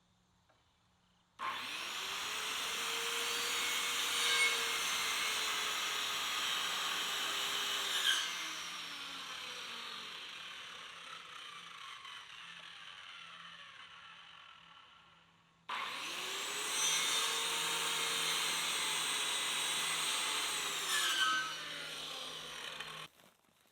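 Electric power saw run twice. Each time the motor spins up with a rising whine and runs for several seconds on the wood, then slowly winds down in pitch after the trigger is released.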